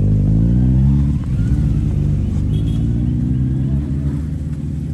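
A vehicle engine revving up, its pitch rising through the first second, then running on at a fairly steady speed.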